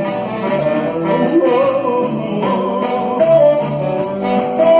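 Live band music in a short instrumental passage between sung verses of a romantic ballad: a melody line over guitar accompaniment and a steady beat.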